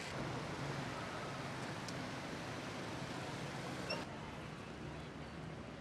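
Steady outdoor street ambience, an even background hiss and hum with no clear single source; the sound changes abruptly about four seconds in, at an edit.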